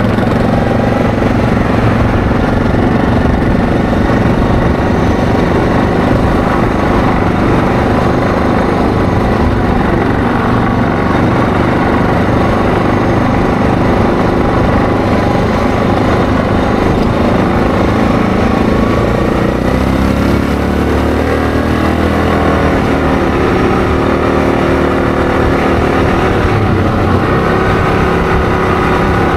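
ATV engine running while riding, with a steady drone that shifts pitch with throttle and speed about two-thirds of the way through.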